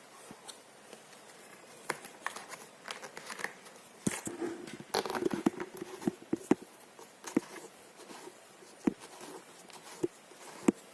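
Hard plastic parts of a baby play gym being handled and fitted together: scattered clicks and knocks, with some crinkling.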